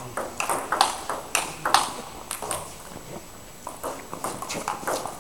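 Table tennis ball clicking back and forth off the paddles and the table in a rally, with a brief lull about halfway through before the hits resume.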